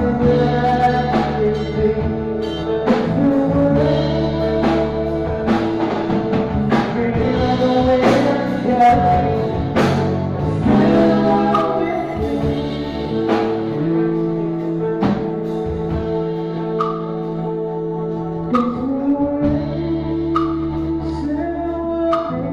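A band's recorded song: singing over sustained chords, with a slow, regular beat.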